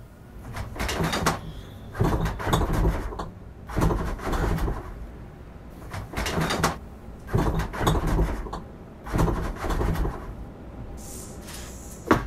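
Repeated bursts of scraping and rustling as things are shoved and moved around, each lasting about a second, with a single sharp knock near the end.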